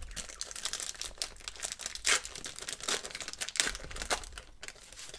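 A 1990/91 Pro Set trading-card pack's foil-lined paper wrapper being torn open and crumpled by hand: dense, irregular crinkling and tearing with sharp crackles all through.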